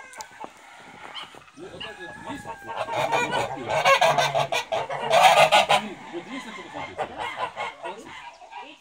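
Grey domestic geese honking in loud, harsh runs, strongest in two spells in the middle, with quieter calls before and after.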